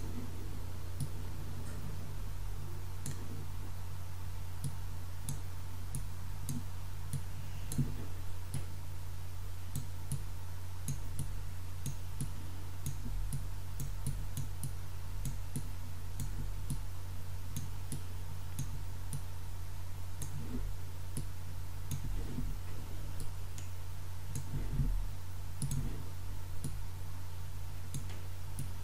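Light, irregular clicks and taps of a stylus on a drawing tablet while lines and numbers are written, over a steady low hum.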